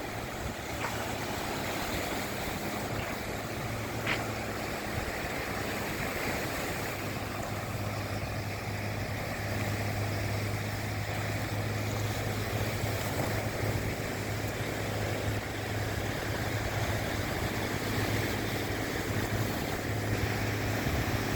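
Black Sea waves washing on the shore, with a steady low motor hum underneath that grows stronger after a few seconds. Two faint clicks sound in the first few seconds.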